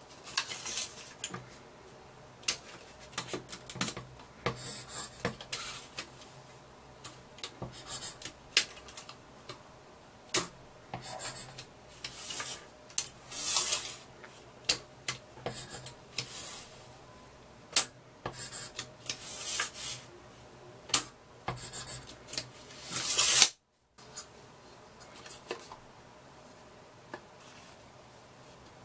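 Handling of a tape measure fitted with a metal pencil holder: sharp clicks and knocks of the case and holder on the board, with scratchy strokes of a pencil drawing across the board. The sound cuts out for a moment about three-quarters of the way through.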